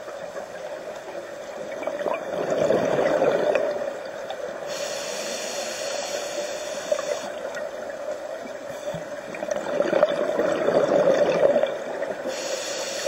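Scuba regulator exhaust bubbles as a diver breathes out underwater, twice: about two seconds in and again about ten seconds in, each burst lasting a second or two.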